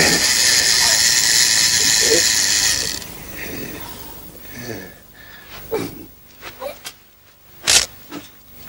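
A loud, steady mechanical running noise, like a small machine or mechanism, stops about three seconds in. Quieter scattered small sounds follow, with a short sharp burst near the end.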